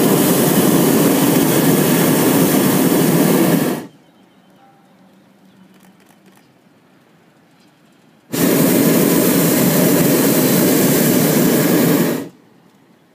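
Hot air balloon's propane burner firing overhead in two blasts of about four seconds each, a loud steady rushing noise. The first is already going and cuts off about four seconds in; the second switches on abruptly about eight seconds in and shuts off shortly before the end.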